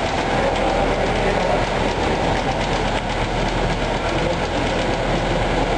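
Racing bicycles sprinting on roller trainers: tyres and roller drums spinning at high speed in a steady, loud whirring rumble.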